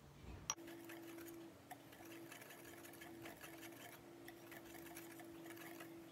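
Wire whisk stirring dry flour, sugar and salt in a glass bowl, its wires ticking faintly against the glass in a quick, even rhythm over a faint steady hum.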